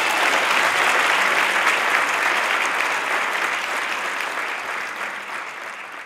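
Audience applauding, loudest at the start and slowly fading out over the last few seconds.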